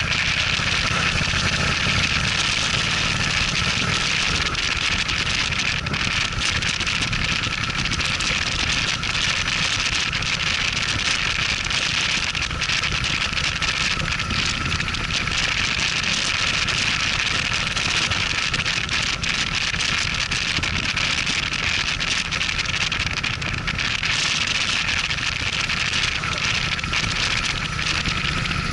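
Cruiser motorcycle engine running at steady road speed, with wind rushing over the microphone as a loud, even hiss.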